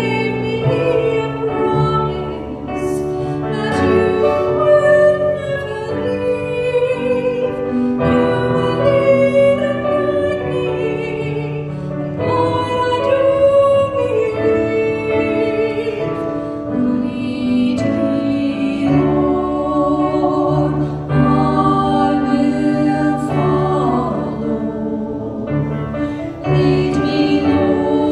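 Singing with electric keyboard accompaniment: slow, long held notes that waver in pitch over steady sustained keyboard chords.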